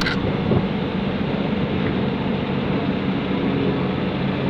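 Forklift engine running steadily at a constant speed, with a short knock right at the start.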